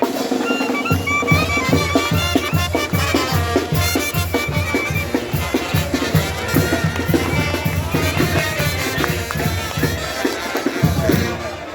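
Live festival music: a fast, steady drum beat under a high melody line, starting just after a burst of crowd shouting.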